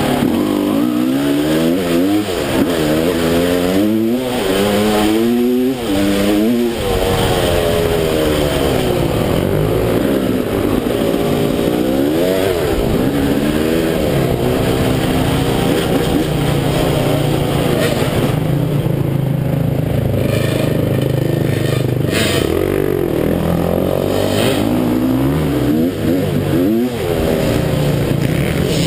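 Dirt bike engine revving up and dropping back again and again while riding a gravel track, heard from on board, over a constant rush of wind and tyre noise. For several seconds past the middle it holds a steadier, lower note.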